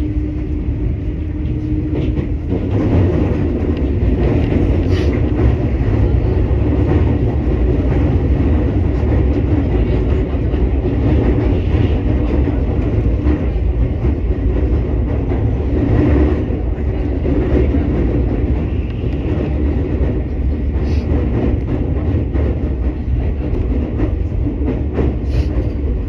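Electric commuter train heard from inside the cab end, running at reduced speed on elevated track: a steady rumble of wheels on rail, with an occasional click from the track.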